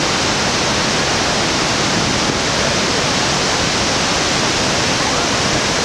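Iguazu Falls, a wide curtain of waterfalls pouring over a cliff edge into a gorge: a loud, steady rush of falling water.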